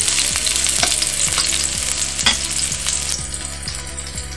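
Chopped garlic and onion sizzling in hot oil in a wok while a metal ladle stirs them, scraping and knocking against the wok with many short strokes. The stirring is noisy, and the sizzle thins a little near the end.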